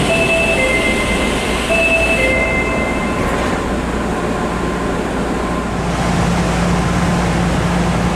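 Osaka Metro 30000A-series train's door-closing chime, a two-note falling chime that sounds twice, then the doors sliding shut about three seconds in. A steady low hum follows.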